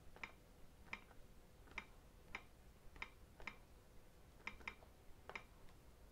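Faint, irregular clicks of typing on a Google Nexus 10 tablet's touchscreen keyboard, about nine taps, one or two a second.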